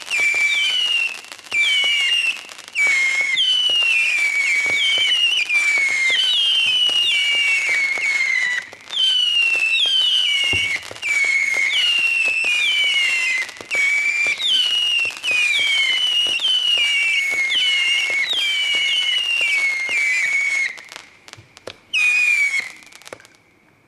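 Winda 'Hard Claw' P5201 firework firing a long run of whistling shots, about two a second and overlapping, each whistle falling in pitch, with scattered pops among them and a heavier bang about ten and a half seconds in. The whistles thin out and stop about twenty-one seconds in, with one last whistle shortly after.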